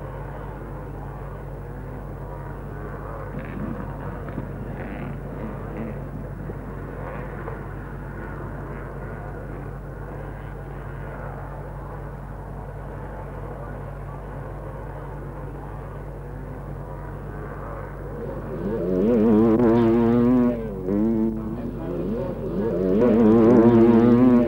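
Motorcycle engines running under a steady bed of tape hiss and hum. About three-quarters of the way in, a much louder pitched sound comes in twice, its pitch rising and wavering.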